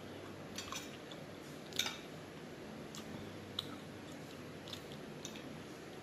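Close-up eating sounds: chewing, broken by about half a dozen short sharp clicks of a metal fork against a plate, the loudest about two seconds in.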